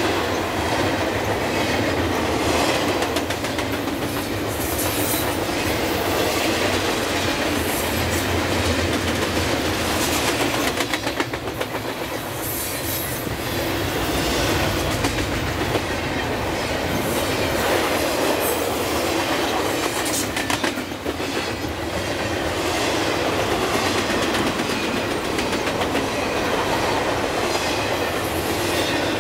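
Double-stack container well cars of a freight train rolling past close by at about 50 mph: a continuous rumble and rattle of steel wheels on rail with a running clickety-clack of wheels over the track. The loudness dips briefly a couple of times, around the middle and again about two-thirds of the way in.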